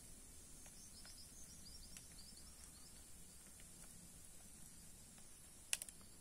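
Quiet outdoor ambience with a steady high insect hiss. A small bird gives a quick run of short high chirps in the first half. Near the end come two or three sharp clicks in quick succession.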